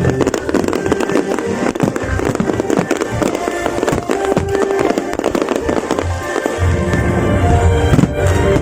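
Fireworks going off in a dense run of rapid bangs and crackles, mixed with added background music.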